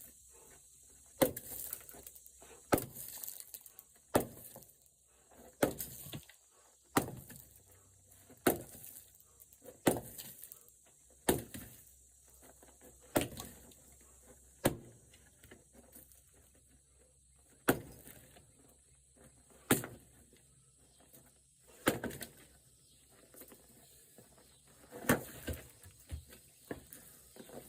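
Pieces of red oak firewood knocking against wood, about one sharp knock every one and a half seconds at first, then more spaced out.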